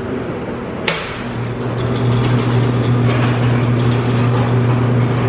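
Vehicle engine running steadily, with a sharp click about a second in. Right after the click the engine's low hum grows stronger, with scattered light ticks.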